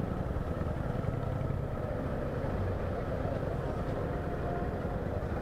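Honda CG 160 Start motorcycle's single-cylinder four-stroke engine running steadily at low speed as the bike rolls slowly through traffic.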